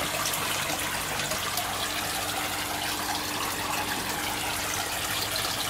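Water running steadily from an inlet pipe and splashing into an aquaponics grow bed of clay pebbles, with a faint steady hum underneath.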